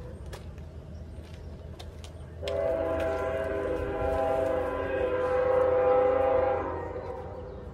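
Train horn sounding one long blast, a chord of several steady tones held together. It comes in about two and a half seconds in, swells, then fades out near the end.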